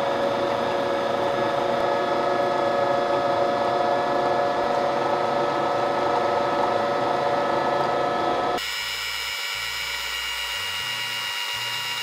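Bosch Universal Plus stand mixer's motor running steadily at low speed, its wire whisks turning in the steel bowl, with a steady whine. About two-thirds of the way through, the sound abruptly drops to a quieter, higher-pitched whine.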